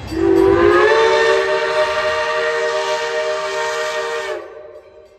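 Steam locomotive whistle on Baldwin 0-6-0 No. 58 giving one long blast of several notes sounding together as a chime. It slides up a little in pitch as it opens, holds steady, and cuts off after about four seconds.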